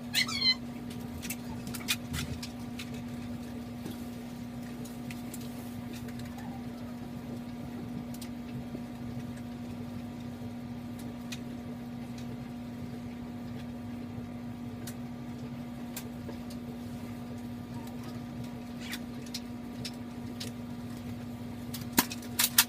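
Steady low hum of room tone, with a few sharp clicks in the first two seconds and a quick cluster of clicks near the end.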